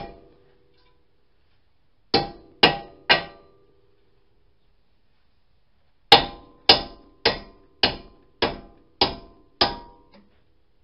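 Hammer blows on a wheel stud in a 2005 Honda Accord's steel front hub, driving the stud out through the hub flange. Each blow is a sharp metallic clang with a short ring: three quick blows, a pause, then a steady run of eight blows a little under twice a second.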